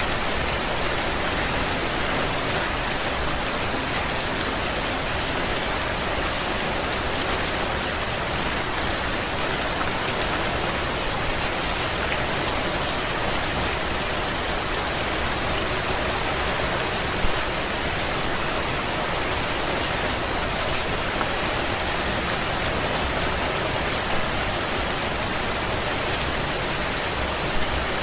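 Steady rain falling: an even, unbroken hiss of drops hitting a surface, with fine ticks of individual drops and one slightly louder tick about seventeen seconds in.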